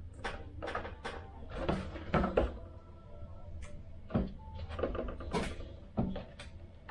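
Irregular clicks, knocks and brief rustles of small model parts, wire and tape being handled on a workbench.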